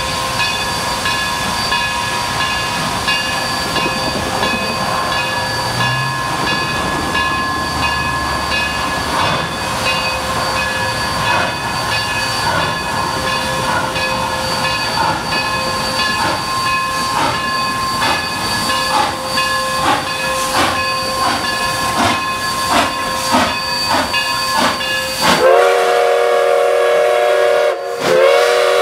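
Narrow-gauge steam locomotive pulling away: a steady steam hiss with exhaust chuffs that come faster as it gathers speed. Near the end its steam whistle sounds a long, loud chord, breaks off briefly, then blows again.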